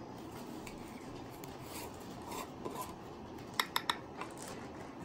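Parts of a metal backpacking stove being handled and fitted together: light scraping with three quick metallic clicks about three and a half seconds in.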